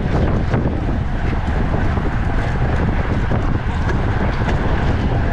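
Heavy wind buffeting a microphone riding on a road bike at race speed, a loud, steady rumble with a few faint ticks in the first half-second.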